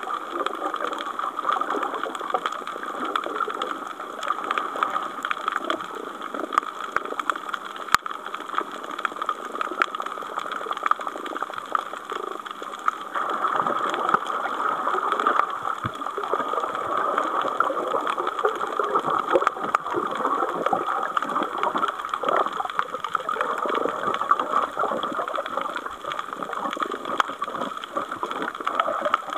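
Underwater ambience picked up by a camera: a steady, dense crackling and bubbling hiss that slowly swells and fades, with one sharp click about eight seconds in.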